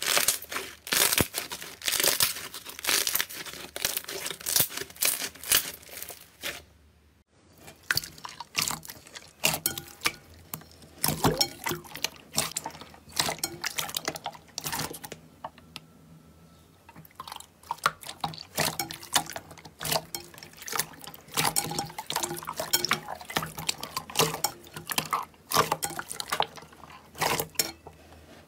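Hands squeezing and kneading slime: a steady stream of wet squelches, sticky clicks and pops, with a short pause about seven seconds in.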